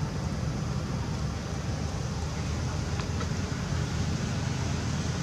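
Steady low outdoor background rumble, even throughout, with no distinct calls or impacts.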